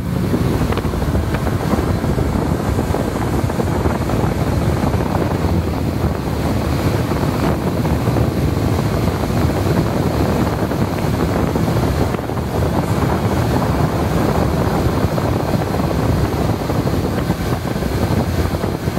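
Speedboat motor running steadily under way, mixed with wind buffeting the microphone.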